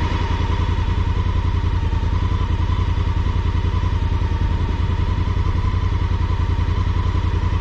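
Honda Africa Twin CRF1000L's parallel-twin engine running steadily with an even, rapid low pulse and no revving. A thin steady whine sits above it.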